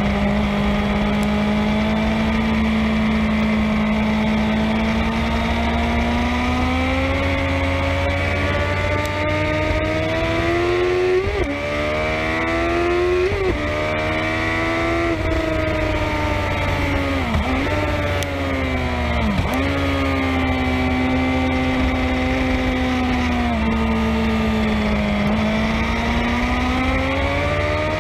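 Racing motorcycle engine at speed on track, heard close to the exhaust with steady wind rumble. The engine pitch holds, then climbs through a couple of quick upshifts about halfway, then drops sharply twice as it shifts down for a corner, before settling and rising again.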